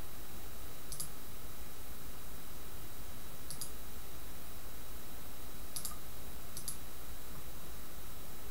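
Four short computer mouse clicks, the last two close together, over a steady hiss.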